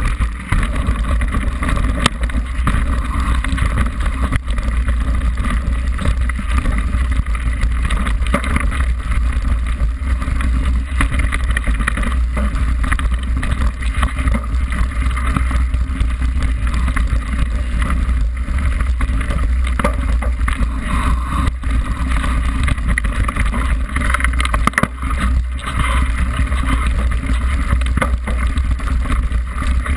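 Mountain bike descending a rough grassy track, heard through a bike-mounted action camera: continuous wind rumble on the microphone, with tyre noise and a steady run of small rattles and knocks from the bike over the bumps.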